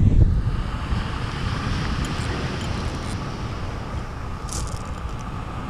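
Wind buffeting the microphone in a low rumble that eases after about the first second, over a steady hiss. A few faint small clicks come from hands working a line clip on the fishing reel.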